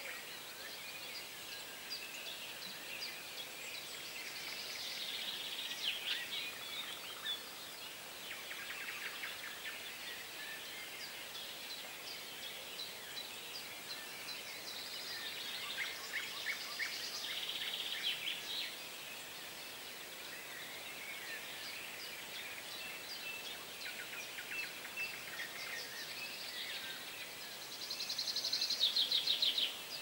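Songbirds singing at the waterside: short phrases and trills come every few seconds over a faint steady background hiss. A loud, rapid trill comes near the end.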